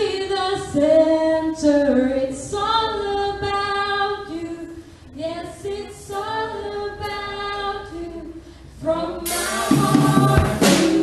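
A young praise team singing a worship song, the voices carrying the melody in short phrases with little or no accompaniment. About nine seconds in, a drum kit crashes in with a cymbal and the band joins.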